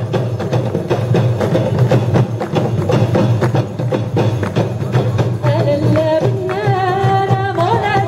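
Traditional Moroccan women's ensemble with large hand-held frame drums beating a steady rhythm. About five and a half seconds in, women's voices start singing a melody over the drums.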